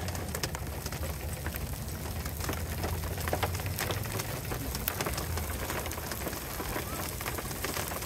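Hail and rain hitting a parked car, heard from inside: a dense, irregular scatter of sharp ticks over a steady hiss, with a low hum underneath that fades about halfway through.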